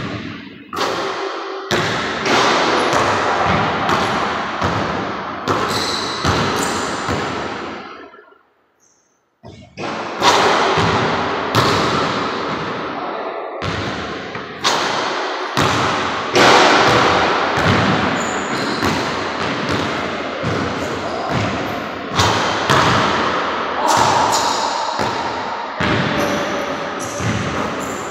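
Basketball bouncing on a hardwood gym floor and striking the backboard on bank shots, a string of thuds each trailed by a long echo in the large gym. The sound drops out briefly about eight seconds in.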